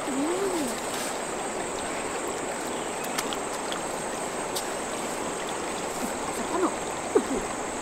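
Steady rush of flowing stream water at an even level, with a few faint brief vocal sounds over it.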